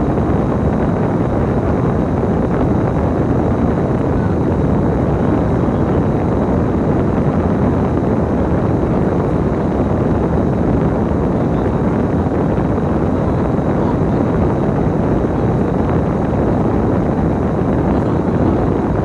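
Steady rumble of a bus's engine and road noise heard from inside the moving bus, mixed with wind noise.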